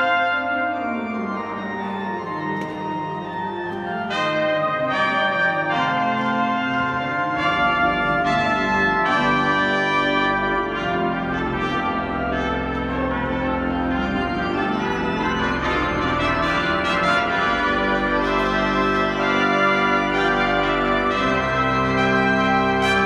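Three trumpets and a pipe organ playing a festive voluntary together, the trumpets sounding over sustained organ chords in a large church. Deep organ bass notes come in about six seconds in, and the music grows fuller from there.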